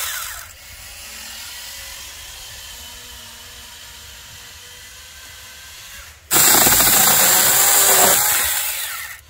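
Saker 4-inch battery mini chainsaw: its electric motor winds down about half a second in, then starts again about six seconds in and runs with a high whine for about two seconds while cutting a small branch, before winding down near the end.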